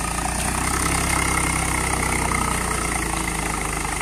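Eicher 380 tractor's diesel engine running steadily under load, pulling a rotavator through flooded paddy mud.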